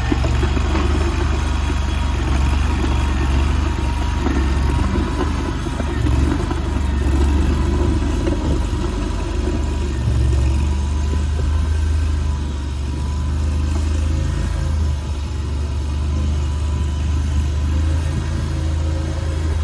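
Mini stand-on skid steer loader's 739cc engine running steadily at working speed, its level swelling and dipping slightly as the machine is worked.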